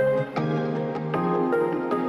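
Instrumental background music: soft keyboard notes over sustained chords.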